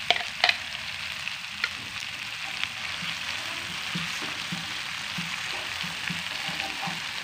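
Red chili spice paste sizzling in a frying pan as a wooden spatula stirs blended roasted peanuts into it, a steady hiss with soft stirring scrapes and a couple of sharp knocks near the start.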